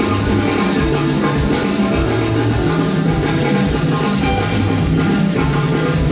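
A band playing at a sound check: drum kit, guitar and a steady bass line, the music running loud and even.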